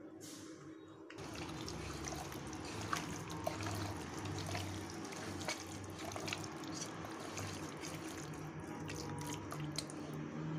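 A hand squishing and mixing raw chicken pieces in a wet marinade of oil, chilli powder, onion and tomato: wet squelching with many small clicks, starting about a second in.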